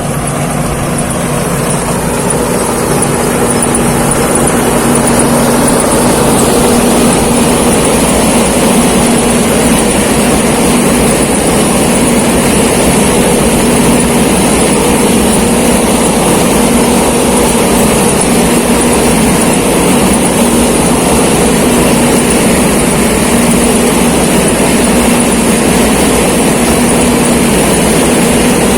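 Thai Seng rice combine harvester running while harvesting: a loud, steady mechanical drone with a thin high whine over it, swelling a little over the first few seconds.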